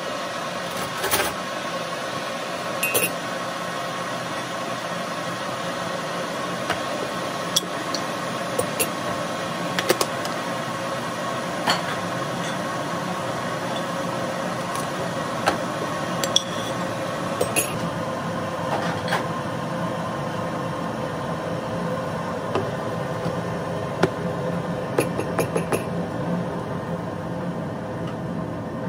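Steady droning hum with light clinks and knocks of hard objects scattered through it, every second or two.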